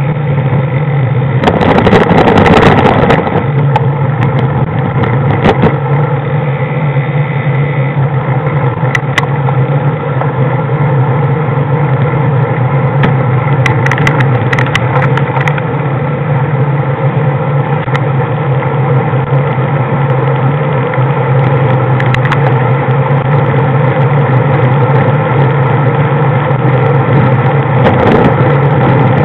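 Road vehicle's engine running steadily while driving, a constant hum. About two seconds in, a louder rough rumble as the wheels roll over cobblestones.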